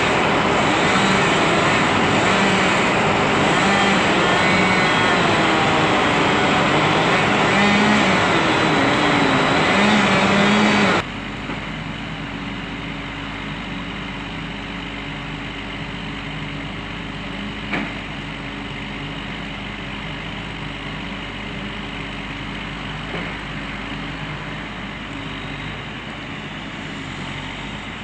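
Engines of tree-removal equipment running. For the first part the engine speed rises and falls as it works. After an abrupt cut a quieter engine runs steadily, with a single sharp knock partway through.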